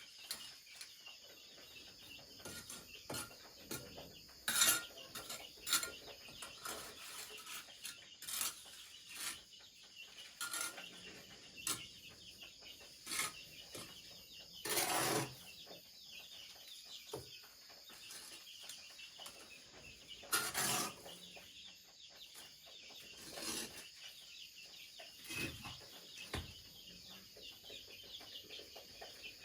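A steady high drone of insects, with scattered sharp knocks and clatters every second or two, the longest about halfway through and about two-thirds through.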